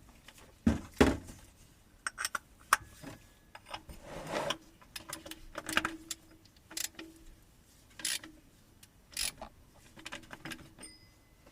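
Metal tools clicking, knocking and rattling against the oil filter of a Toyota Prius 1.5 petrol engine as it is worked loose with a cup-type filter wrench, in irregular separate clinks.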